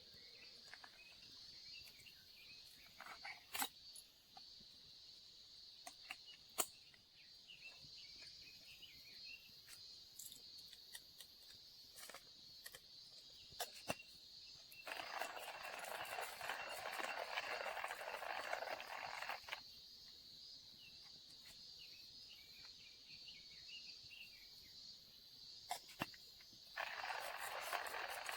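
Insects droning steadily in a high, narrow band, with scattered sharp clicks. A louder rushing noise comes in for about four seconds past the middle and again briefly near the end.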